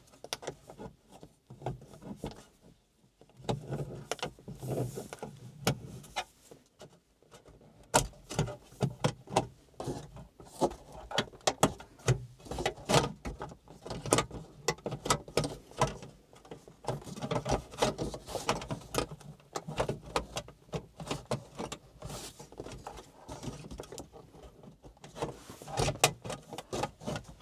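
Plastic interior trim being pried with a plastic spudger: irregular clicks, snaps and scraping as the rear-view mirror housing cover is worked down off its clips.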